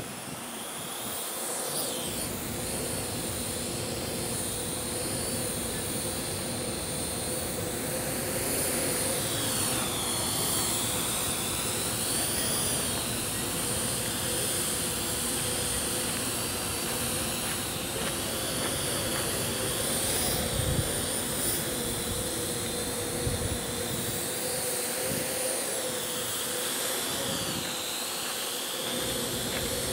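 Parrot AR.Drone 2.0 quadcopter's electric motors and propellers whining steadily, the pitch wavering up and down as the motors adjust their speed to hold the drone in strong wind. Wind rumbles on the microphone in gusts.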